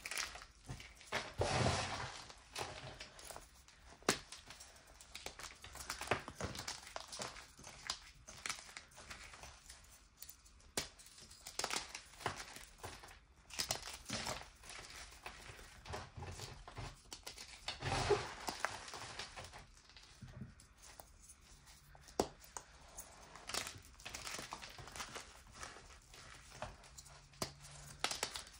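Hands crushing and crumbling balls of reformed gym chalk into loose chalk powder: an irregular run of soft, gritty crunches. There are a few louder crunches, one a second or two in and one about eighteen seconds in.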